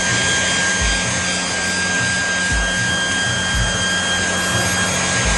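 Hand-held hair dryer running steadily on a freshly painted batik panel to dry the dye: a steady rush of air over a high motor whine, with a low pulse about once a second.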